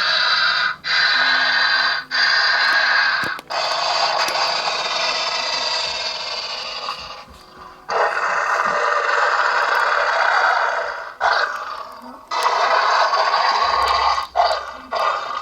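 Xenomorph hissing and screeching sound effects from the life-size Big Chap figure's built-in sound module. They come as a series of raspy hisses, each lasting one to four seconds with short breaks between them, and turn into quicker, shorter bursts near the end.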